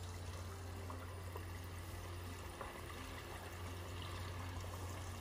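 Egg rolls deep-frying in a pot of hot oil: a steady sizzle and bubbling over a low steady hum.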